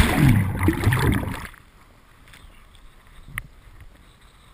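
A windsurfer falling into the water: a sudden loud splash and about a second and a half of rushing, gurgling water as the camera goes under. Then quieter lapping water, with one small knock about three and a half seconds in.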